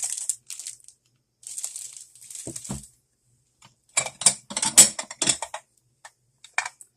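A bag crinkling as an item is unwrapped, in two stretches. It is followed, about four seconds in, by a quick run of sharp clacks and knocks as hard objects are handled and set down, with a couple more near the end.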